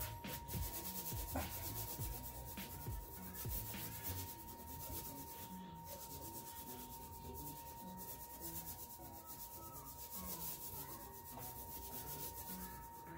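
A small cloth towel with baking soda paste scrubbed back and forth against a kitchen wall, rubbing off old, hardened cooking grease. Firmer strokes in the first few seconds, then steady rubbing, over a faint steady tone.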